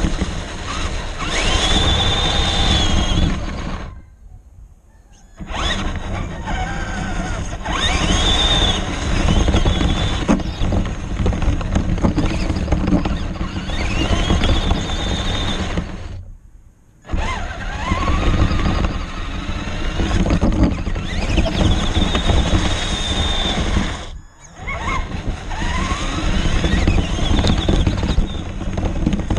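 Onboard sound of an RC car driving through snow and slush. Its motor whines up in pitch each time it accelerates, over a steady rushing rumble of tyres and churned slush. The sound drops out briefly three times.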